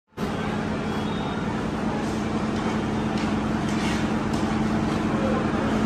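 Busy railway platform ambience: a steady low hum over a constant background din, with a few faint clicks.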